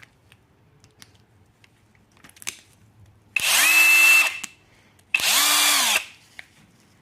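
Electric hand drill run in two short bursts of about a second each, spinning up, holding speed and winding down, while cleaning an oil pan bolt so it will torque correctly. A few light handling clicks come before the first burst.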